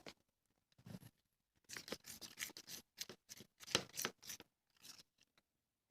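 Spoon stirring homemade slime in a bowl, with the glue and contact lens solution mixture thickening into slime: a run of faint, irregular scraping strokes from about two to four and a half seconds in.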